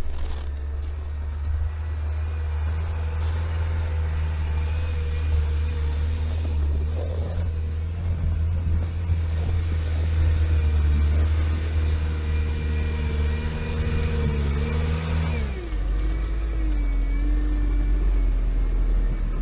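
Turbodiesel engine of a tracked all-terrain vehicle running steadily under way. About fifteen seconds in, the engine note drops sharply and settles at lower revs.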